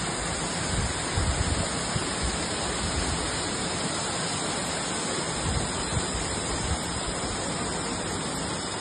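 Muddy floodwater from a cloudburst rushing and cascading down a rocky gully, a steady rush of water, with a few brief low thumps about a second in and again around six seconds.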